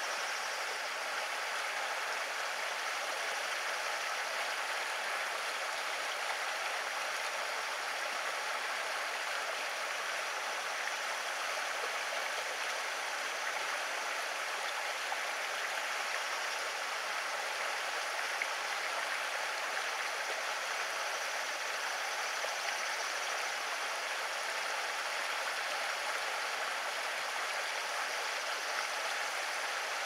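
Steady rush of running water, an even hiss with no change throughout.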